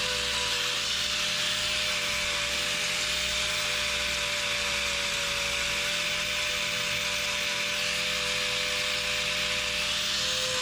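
Angle grinder with a hoof-trimming disc running steadily against a cow's overgrown hoof, a constant whine over a gritty grinding hiss.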